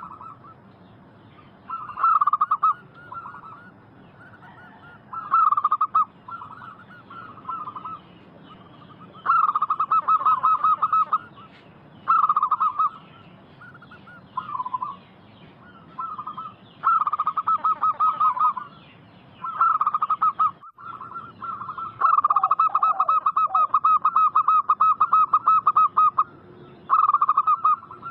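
Zebra doves (perkutut) cooing: repeated phrases of rapid trilled notes, each a second or two long, with one long unbroken run of about four seconds past the middle.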